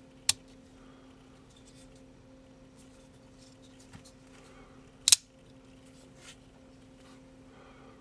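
Smith & Wesson First Response folding rescue knife's assisted-opening blade and liner lock clicking as it is worked: a sharp metallic snap just after the start and a louder double snap about five seconds in, with softer clicks and handling noise between. A low steady hum runs underneath.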